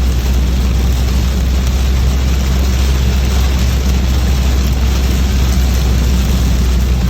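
Steady drone of a car driving in heavy rain: low road and engine rumble under an even hiss of rain and tyre spray.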